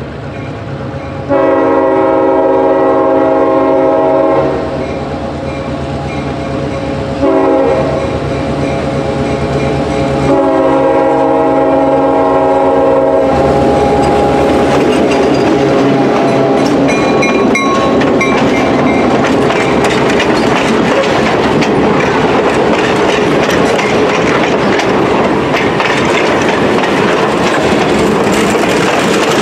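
EMD GP9 diesel locomotive blowing its chime horn for a grade crossing: a long blast, a short one and a second long one. Then the locomotive's diesel engine runs past close by, followed by the steady clatter of passenger coach wheels over the rail joints.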